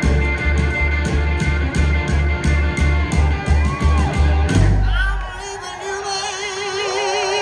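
Live blues-rock band playing with a pounding low beat, about three hits a second, that stops about halfway through on a final hit. A held, wavering note rings on after it, with shouts from the crowd.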